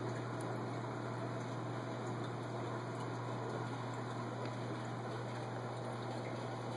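Aquarium filter running: a steady low hum under a continuous hiss of moving, bubbling water.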